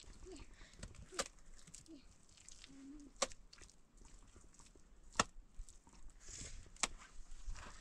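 Four sharp knocks, evenly spaced about two seconds apart.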